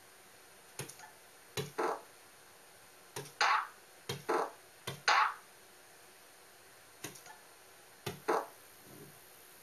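Short sound effects from the Tux Paint drawing program played through the computer's speakers, about seven times, each a sharp click followed at once by a brief whooshing effect, as shapes are picked and drawn with the interactive pen.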